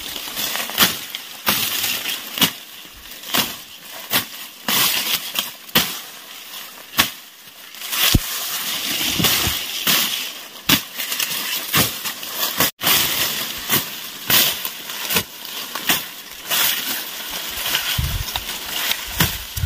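Machete chopping through tall dry grass stalks: a sharp cutting stroke every second or so, with the grass rustling and crackling as it falls between strokes.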